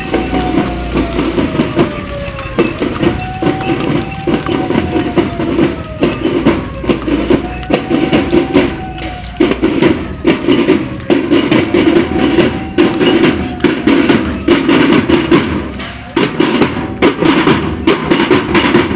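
Loud parade music from a carnival sound system: a wailing tone that rises and falls, repeating about every two and a half seconds, over dense, fast drumming.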